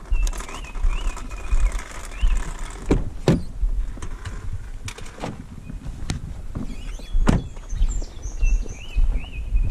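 Several sharp clunks and clicks as a Ford F-150 pickup's cab door is opened and shut and gear is handled, over a steady low wind rumble on the microphone. A bird chirps repeatedly in the background near the start and again near the end.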